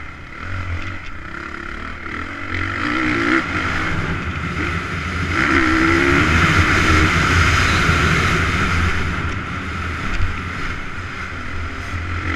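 Motocross bike engine heard from on board while riding a dirt track, revving up and down through the gears. It runs hardest and loudest from about halfway through, on the straight, then eases off.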